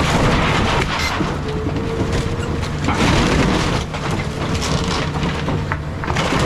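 Caterpillar 323 excavator running while it crushes and tears apart a house's wood framing: wood crunching, cracking and splintering over the steady engine hum, with the crunching heaviest about three seconds in.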